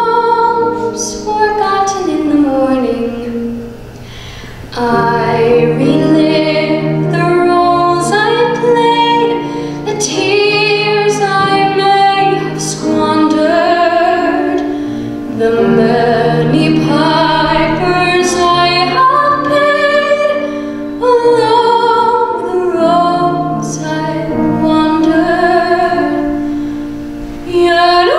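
A woman singing solo, holding long notes over accompaniment, with a short quieter break about four seconds in.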